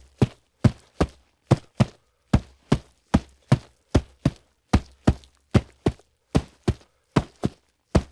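Hooves clip-clopping on a hard surface at a steady walking pace: sharp knocks in pairs, a pair a little under every second.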